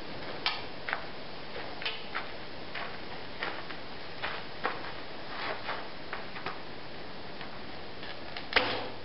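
Scattered light ticks and clicks, then near the end one sharp, loud snap of a bow being shot: the bowstring released from full draw, with a brief low hum after it as the string settles.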